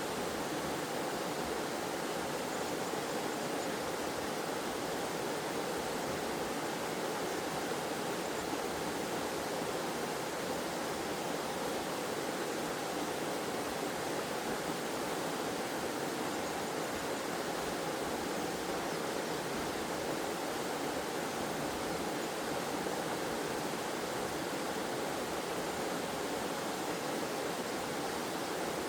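Waterfall and stream water splashing and flowing in a steady, even rush.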